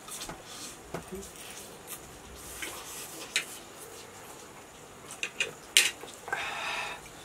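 Two people eating very spicy instant noodles: slurps and sniffs, forks clicking sharply against plates a little over five seconds in, and a drawn-out breathy sound near the end as the chili heat hits.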